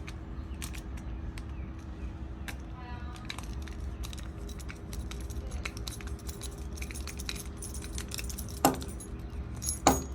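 Small metal collar hardware (D-ring, screw posts, buckle) clinking and ticking as it is handled and fitted onto a faux-leather dog collar, with two louder knocks near the end.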